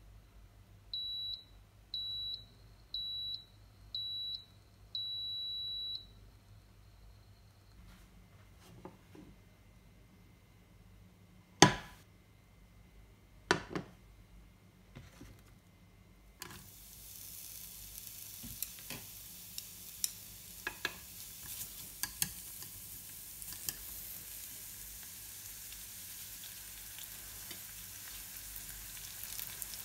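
Cuckoo CR-0351FG electric rice cooker beeping, four short beeps and then one longer one. Two sharp knocks follow, then oil begins sizzling in a non-stick frying pan as julienned vegetable strips fry, with small crackles throughout.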